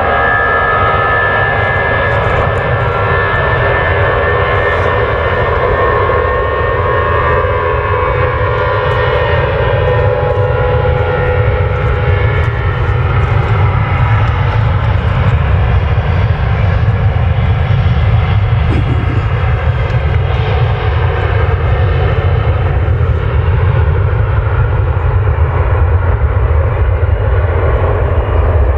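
Airbus A320 taking off, its jet engines at takeoff power. A whine of several steady tones fades over the first dozen seconds while a deep rumbling roar builds and holds.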